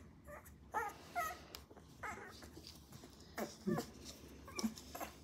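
Very young Golden Retriever puppy whimpering in a string of short cries while held on its back, protesting a position it dislikes.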